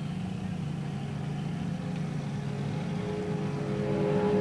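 Drag boat engines racing down the lake course, heard from a distance as a steady drone that grows louder near the end.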